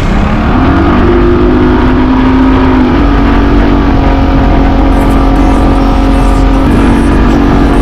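Motorised watercraft engine revving up over the first second, then running steadily at high speed, its pitch dropping a little about three seconds in.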